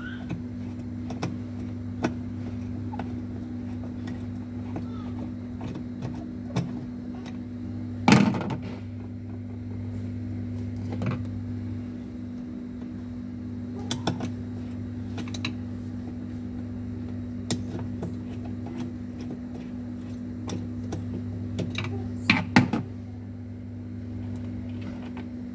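Scattered knocks, clicks and clatter of parts being handled while a washing machine is dismantled, over a steady low hum. The loudest knocks come about a third of the way in and again near the end.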